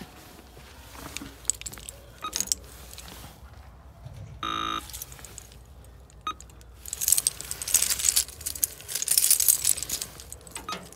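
A Cyfral CCD-2094 door intercom panel gives one short electronic beep about halfway through as its keypad is pressed. Then a bunch of keys with a plastic intercom key fob jangles for about three seconds near the end.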